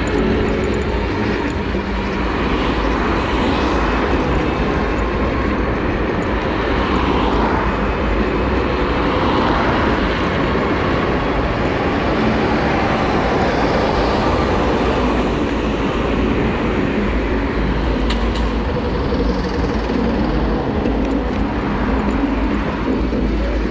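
Steady wind rushing over the microphone and tyre noise on tarmac from riding electric two-wheelers at speed, with faint wavering tones in the mix and a few short ticks near the end.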